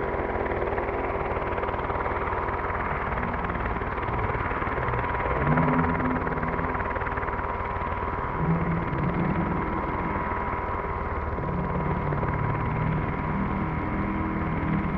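Radio-controlled 3D helicopter flying just above the grass: the steady whine of its motor and the whirr of its main and tail rotors, with the lower rotor note shifting now and then as it manoeuvres.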